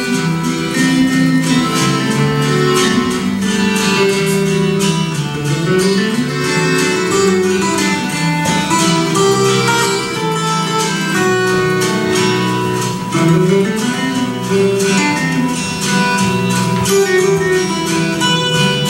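Instrumental music led by plucked acoustic guitar playing quick notes, with some gliding lower notes underneath.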